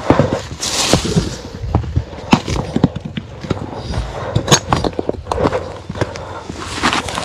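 Rocks knocking and clattering against each other in irregular clacks and thuds as stones are cleared off a rough track.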